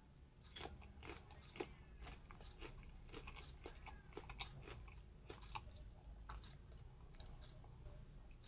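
Close-up crunchy biting and chewing of mango dipped in soy sauce: a sharp first bite about half a second in, then a run of crisp chewing crunches.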